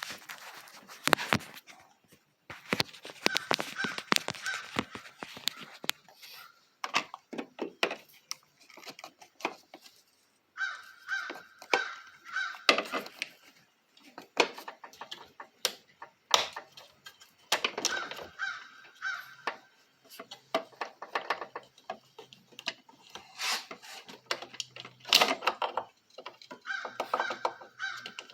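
Harley-Davidson 103 Twin Cam's electric starter straining to crank the engine in a series of attempts a couple of seconds long, full of rapid clicking and a rasping whine, without catching. The starter is underpowered on the compact jump pack, which the owner doubts has enough current to start the big twin.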